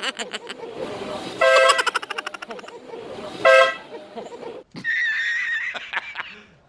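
An electric horn sounds in two short, loud, steady honks, about a second and a half in and again two seconds later, each followed by a wavering buzzy trail; it is set off as a prank. Near the end, a different wavering high-pitched sound plays for about a second.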